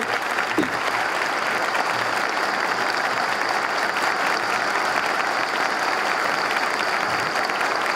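Audience of uniformed personnel applauding steadily.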